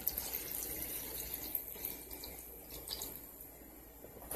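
Red fruit punch poured from a plastic jug into a drink cooler already full of punch and orange slices, a steady splashing pour that tapers off near the end.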